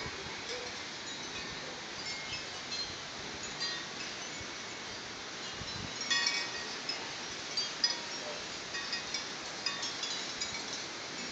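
Wind chimes tinkling irregularly in the breeze, a scatter of short high ringing notes that grow busier about halfway through.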